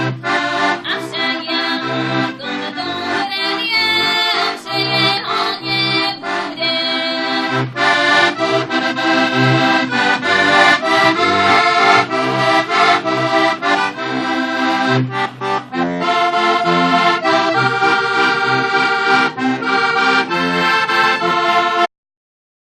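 Heligonka, a Slovak diatonic button accordion, playing a folk tune on its own: a melody over bass notes pulsed at a steady beat. It stops abruptly near the end.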